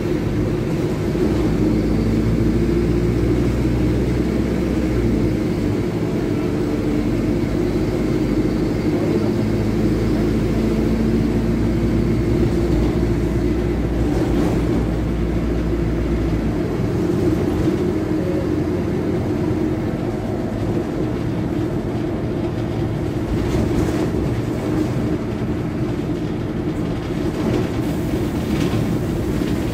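Rear-mounted four-cylinder Mercedes-Benz OM-924 LA turbo diesel of a Mercedes-Benz OH1621L city bus with a free-flowing exhaust, running on the move and heard from inside the passenger cabin. It makes a steady engine drone, and a deep low rumble comes and goes. A few short rattles come near the end.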